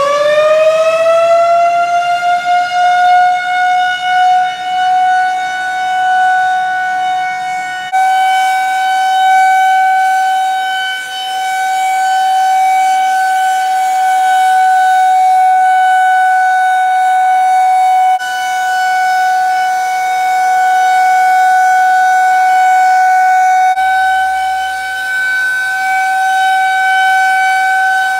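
Outdoor tornado warning siren sounding a steady tone during a test: it finishes winding up to full pitch in the first second or two, then holds one loud, steady note.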